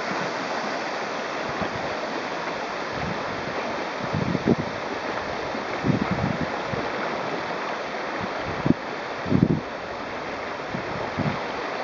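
Steady rush of river whitewater in a rapid, with a few short low thumps from wind buffeting the microphone.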